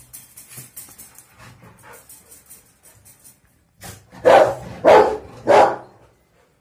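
A dog barking three times in quick succession, about four seconds in, each bark short and loud.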